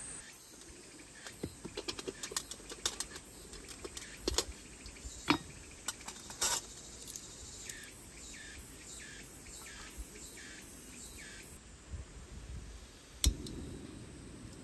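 Small metal clicks and clinks as a folding canister camping stove is handled and its pot supports unfolded, then a sharp click about 13 seconds in as the burner is lit, followed by the low, steady rush of the gas flame.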